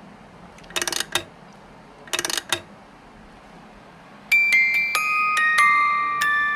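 Two short bursts of noise in the first few seconds, then a gentle keyboard melody with bell-like notes begins about four seconds in, each note ringing and fading as the next one steps in.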